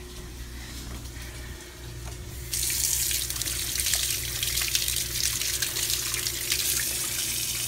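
Kitchen faucet turned on about two and a half seconds in, then water running steadily into the sink over a hand being rinsed.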